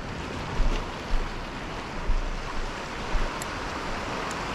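Sea water lapping and sloshing at a kayak, with wind buffeting the microphone in low, uneven rumbles. A couple of faint high ticks come near the end.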